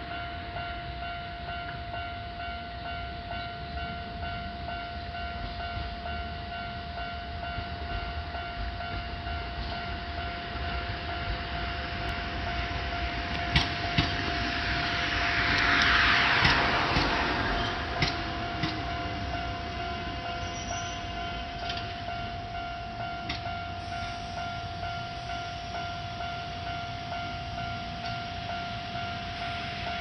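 A Kintetsu electric train passes over a level crossing, loudest about halfway through, with a few sharp wheel clacks over the rail joints as it goes by. A steady electronic warning tone from the crossing's alarm sounds under it.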